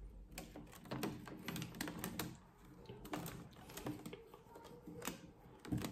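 Soft, irregular clicks and light plastic crackles from water-filled PET bottles being handled while a rubber band is wrapped around them to hold them together.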